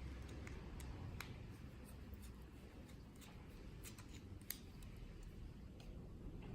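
Faint, scattered light clicks and taps of a lock and small tools being handled on a workbench, one sharper click about four and a half seconds in, over a low steady hum.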